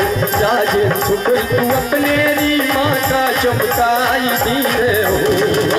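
Music with a fast, even drum beat and a singing voice.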